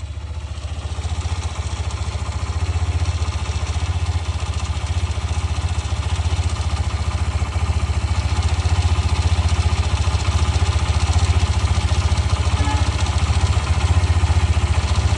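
Hero Xtreme 125R's single-cylinder engine idling steadily, with a fast 'kir kir kir' rattle from inside the engine like a loose nut shaking, which the owner suspects is tappet or timing-chain noise. It gets louder over the first few seconds.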